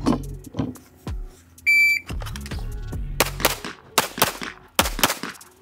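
A shot timer's electronic start beep, then six 9mm pistol shots from a Springfield Echelon, fired as three quick pairs and ending about three and a half seconds after the beep.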